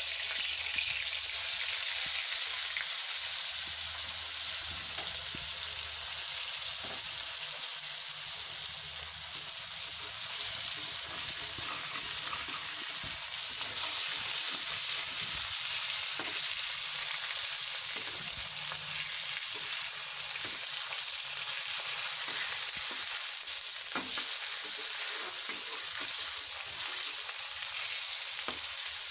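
Silver carp steaks frying in hot oil in a steel kadai: a steady, even sizzle, with a few light taps of the spatula against the pan now and then.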